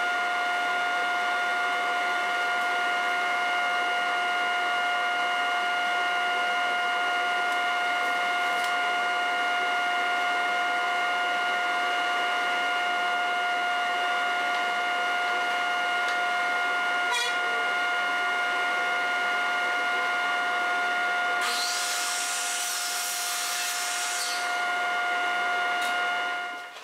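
Steady machine whine from the workshop's dust collection, sped up to double speed so its pitch is raised an octave, with a few faint clicks. Near the end comes a short, high rush of noise as the miter saw cuts a board.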